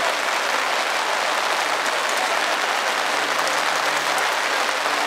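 Steady rain falling, an even hiss that does not rise or fall.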